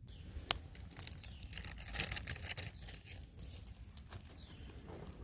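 Irregular rustling and crackling clicks, busiest about two seconds in, over a steady low rumble, with a short falling bird chirp near the end.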